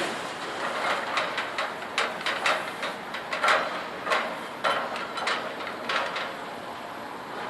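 A loader handling scrap metal, making irregular metal bangs and clanks about twice a second. They thin out near the end.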